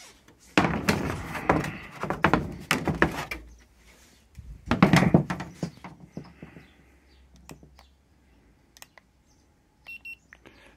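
Handling knocks and rubbing of a plastic radiator grille on a wooden workbench, with a heavy thunk about halfway through. Near the end come a few short high beeps from an infrared thermometer taking a reading.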